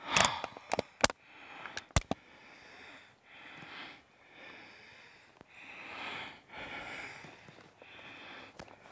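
A man breathing hard and audibly, about one breath a second, with a few sharp clicks in the first two seconds.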